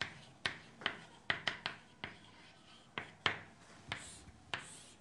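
Chalk on a chalkboard: a string of sharp, irregular taps as figures and letters are written, then a longer scrape near the end as a line is drawn.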